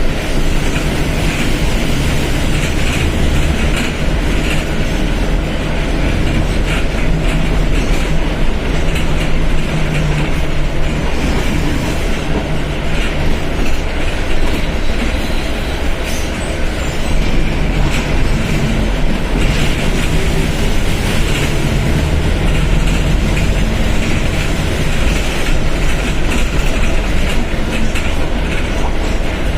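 Mercedes-Benz OF1721 BlueTec 5 bus's diesel engine running while the bus is under way, mixed with steady rolling noise and rattling. The engine's low pitch shifts slightly over the half-minute.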